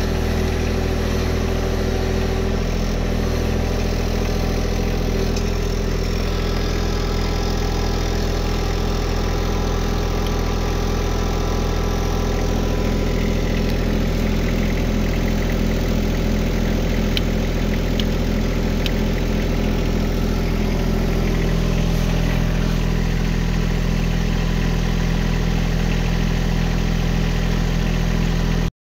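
John Deere 1025R sub-compact tractor's three-cylinder diesel engine idling steadily; the sound cuts off suddenly near the end.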